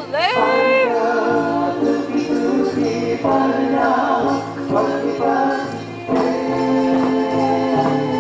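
Music: a group of voices singing together over a steady low chordal backing, with a voice sliding up and down in pitch at the very start.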